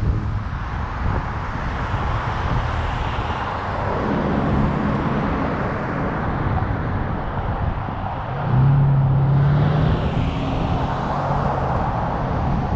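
Car driving, with steady engine and road noise; a low engine hum grows louder about eight and a half seconds in.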